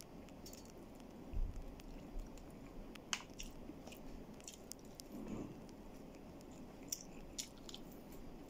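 Close-up eating sounds: a man chewing rice, with a plastic spoon clicking and scraping against a plastic food tub now and then, and a dull thump about a second and a half in.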